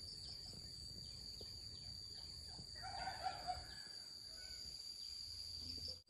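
Quiet outdoor ambience with a brief bird call, like a distant chicken clucking, a little before halfway through, over a steady faint high-pitched tone.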